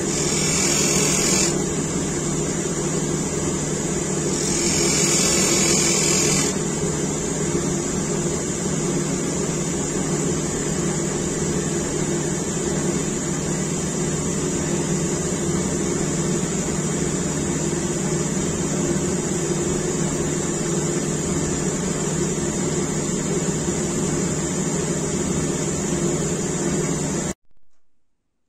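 Bench grinder running steadily while the steel blade of a spoon-carving hook knife is ground on its emery wheel, the grinding hiss getting louder twice in the first seven seconds. The sound cuts off suddenly near the end, leaving a faint crinkle of plastic packaging.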